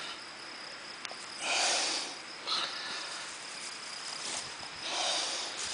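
Grass rustling as hands part it and pick mushrooms at the ground, in two short bursts: one about a second and a half in, one near the end.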